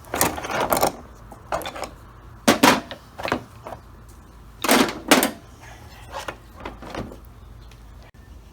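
A Holley carburetor being taken apart by hand: irregular clunks and scrapes of metal parts and tools, about seven short separate bursts, the loudest near the middle.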